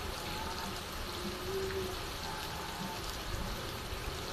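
Steady heavy rain falling on a clay-tiled roof and pouring off the eaves, with a few faint, brief tonal calls in the background.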